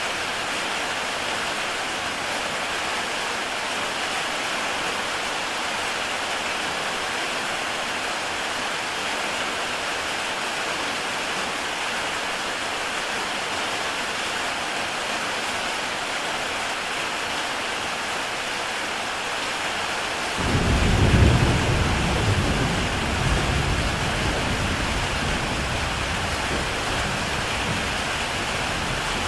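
Heavy rain falling steadily on a tile roof. About two-thirds of the way through, a sudden clap of thunder breaks in, loudest just after it starts, then rumbles on low and fading.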